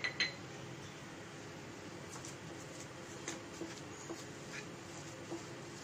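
Quiet room tone with a few faint, sparse clicks of kitchen utensils against a pan.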